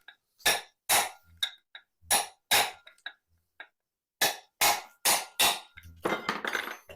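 Repeated hammer knocks on a ceiling fan motor, driving the stator out of its housing: about ten sharp blows with a short ring, in two runs with a pause in the middle.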